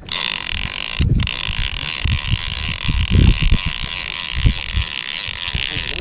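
AC600-30D electric fishing reel running its motor and gears, a steady whirring whine as it winds in line. It stops briefly about a second in, then picks up again, with dull handling thumps from the rod beneath.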